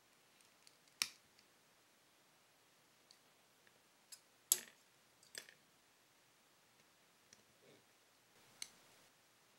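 Plastic parts of an HG Xi Gundam model kit clicking as they are pressed together by hand: a few sharp, spread-out clicks, the loudest about four and a half seconds in.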